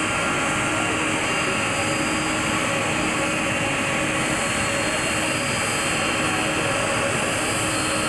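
Jet engines of an Airbus A310-300 airliner on its landing roll, a steady, unchanging noise with a few faint steady tones in it.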